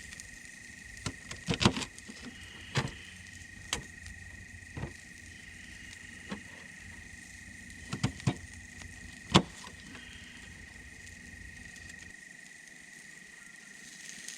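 Knife tapping on a small camp cutting board while Brussels sprouts are cut: about a dozen sharp knocks at irregular intervals, the loudest about nine seconds in. A steady faint high tone runs underneath.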